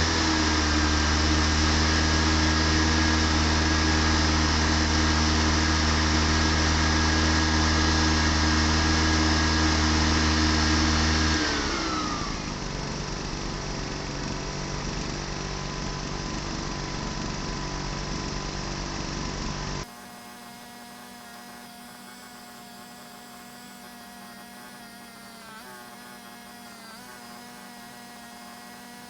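Small Honda EX300 portable generator engine speeding up and running steadily at high speed, then slowing to a lower, quieter speed about eleven seconds in. It cuts off abruptly about two-thirds of the way through, leaving a low steady electrical hum.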